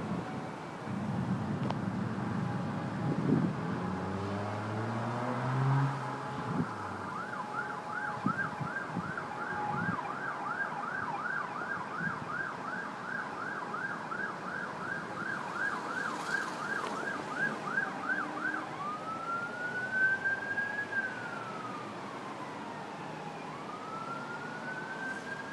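Emergency vehicle siren: a fast yelp warbling about two and a half times a second switches near the end to a slow wail that rises and falls twice. Before it, a vehicle engine revs up, over a steady hiss of wind and rain.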